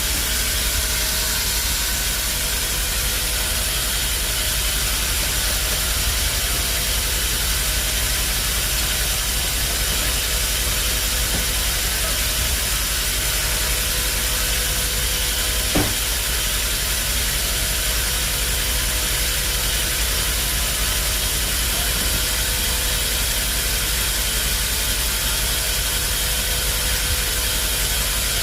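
Band sawmill machinery running steadily: a continuous hiss with a low steady hum underneath, and a single knock about halfway through.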